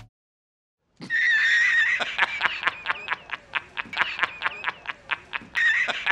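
A man's laugh played as a meme sound effect: a held high-pitched squeal breaking into rapid, even bursts of laughter, about five a second. It starts about a second in, after a brief silence, and begins again near the end.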